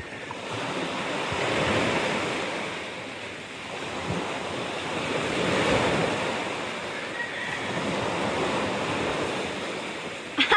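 Small surf breaking and washing up a sand beach, the rush of the waves swelling and ebbing every few seconds. Wind buffets the microphone.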